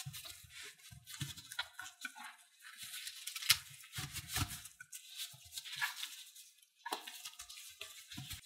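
Bamboo rolling mat clattering and rustling as gloved hands roll up and squeeze a gimbap, in an irregular run of crackles and small clicks. A sharper click comes about three and a half seconds in.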